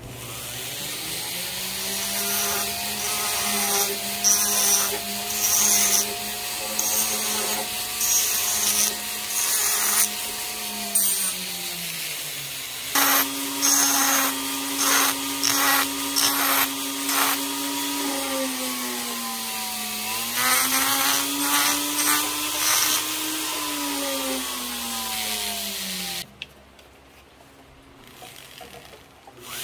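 Handheld rotary carving tool with a spiked carbide rasp burr running, its motor whine shifting pitch as the speed changes, with repeated rasping bursts as the burr cuts into a small piece of resinous pine. The tool goes quiet near the end.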